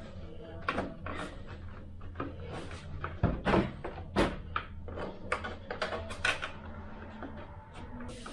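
Hands handling and fitting small model-aircraft tail parts: a run of light irregular clicks and taps, with a few louder knocks a little after three seconds and at about four seconds, over a faint steady hum.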